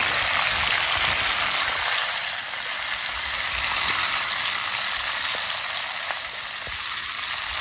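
Whole fish frying in a pan of hot oil, the oil sizzling steadily with a few small pops.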